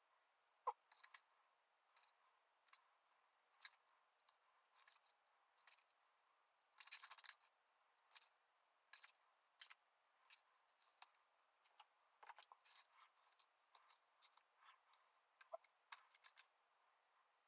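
Faint, irregular clicks and short scrapes of small hand tools at work, with one longer scrape about seven seconds in.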